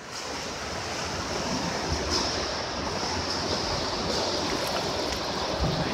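A steady wash of water noise, like a pool or surf ambience, swelling in over about the first second and then holding even.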